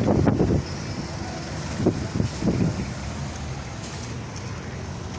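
Engine and road noise of a moving vehicle heard from inside it in city traffic, with a few short low thumps near the start and again about two seconds in.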